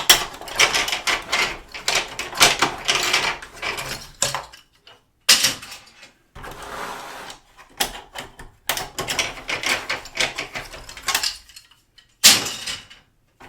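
Injection-moulded plastic keys of an electronic keyboard being pried off and handled: a busy run of plastic clicks, snaps and rattles, with a few short pauses.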